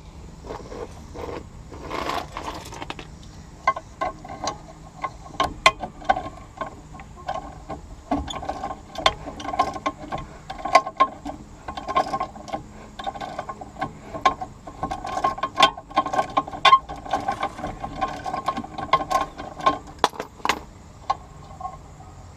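A 3/8-drive ratchet clicking in repeated short strokes as it turns a 16 mm deep socket, backing a rusted nut off a sway bar end link bolt. The clicks come in runs, densest through the middle stretch.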